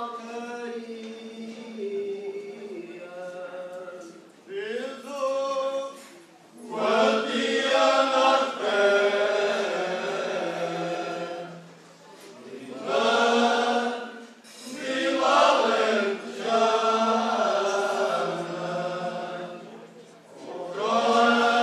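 Male Cante Alentejano choir singing unaccompanied in slow, long-held phrases. A single voice leads at first, and the full choir comes in about six seconds in, pausing briefly for breath before going on.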